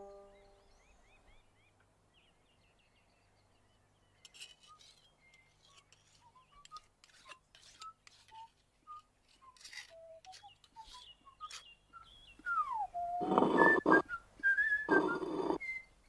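Cartoon snoring from sleeping animals: scattered faint chirps and whistles, then near the end two loud rasping snores, the first gliding down in pitch into a whistle and the second ending in a high whistle.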